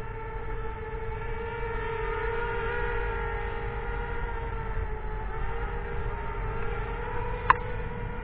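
A home-built FPV quadcopter's brushless motors and propellers whine steadily in a low hover. The whine is one pitch with overtones and wavers slightly as the throttle is corrected, and a short sharp click comes about seven and a half seconds in.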